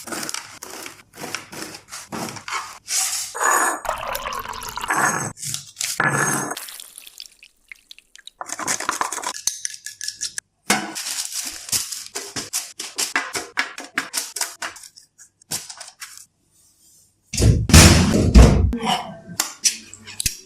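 Kitchen preparation sounds: dishes and utensils clinking and knocking, with handling and scraping noises, and a loud, deep burst lasting about a second and a half near the end.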